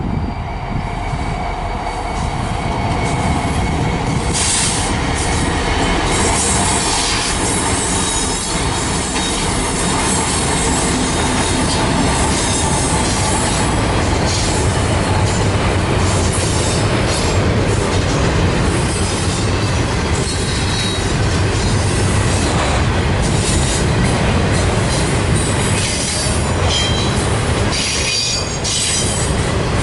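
CN freight train running by: two SD70M-2 and an AC44C6M diesel-electric locomotives, then double-stack container well cars, with steady wheel-on-rail noise, clicking, and some thin wheel squeal.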